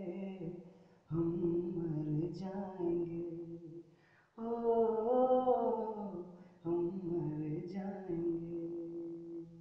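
A man singing unaccompanied, with no instruments: three long, drawn-out phrases separated by short pauses, the closing lines of a Hindi film-song cover.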